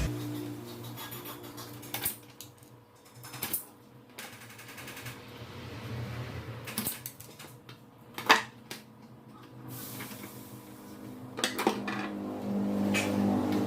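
Scattered sharp clicks and knocks of a screwdriver and wire being worked onto the screw terminals of light sockets while terminating a wire, about half a dozen, the loudest a little past the middle, over a low steady hum.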